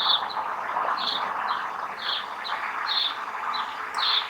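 A bird calling over and over, a short high chirp about once a second, each followed by a fainter one, over a steady background hiss.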